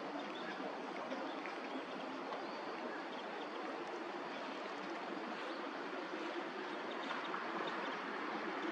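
Steady rushing noise like running water, even throughout.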